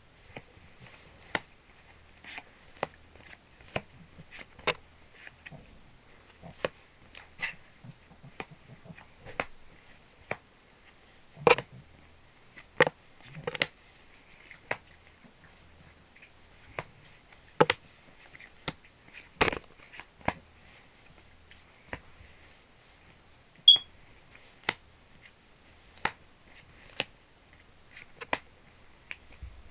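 Trading cards and foil booster-pack wrappers being handled: irregular sharp clicks and snaps, one or two a second, a few of them louder, with a short high chirp about two-thirds of the way through.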